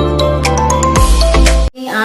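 Background music: sustained chords with quick high notes over them, cutting off suddenly near the end.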